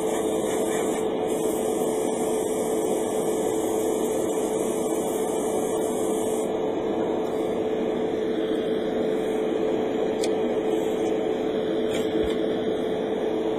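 Steady electric motor hum with a constant tone, under the hiss of air from an airbrush spraying primer; the hiss stops about six and a half seconds in.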